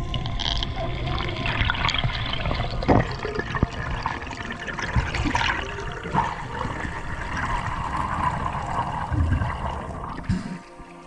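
Water rushing and bubbling continuously, with a sharp knock about three seconds in.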